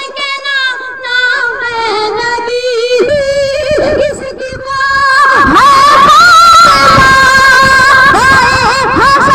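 A boy's solo voice singing an Urdu naat (devotional song) into a microphone, in long, ornamented, wavering lines, with no spoken words. It grows louder and fuller about halfway through.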